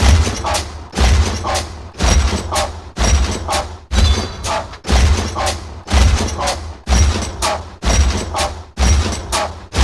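Sound-effect footsteps of a giant walking robot: a heavy, booming metallic thud about once a second, each followed about half a second later by a shorter mechanical clank with a whirring, pitched ring, in an even walking rhythm.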